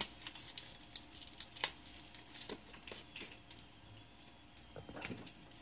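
Faint, scattered light clicks and taps from hands handling food and utensils during kitchen prep work.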